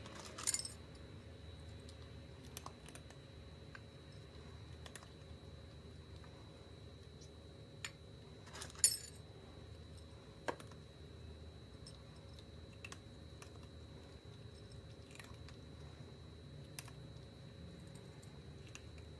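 A cat chewing dry kibble off a plate: faint scattered crunches and sharp clicks over a steady low hum. The loudest click comes about nine seconds in.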